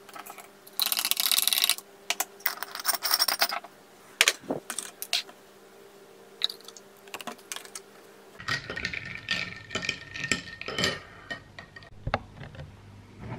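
Metal teaspoon stirring instant coffee in a cut-glass tumbler: quick clinks and scrapes against the glass, with two longer bursts of rapid stirring in the first few seconds. After a cut about eight seconds in, a run of lighter irregular taps and clicks.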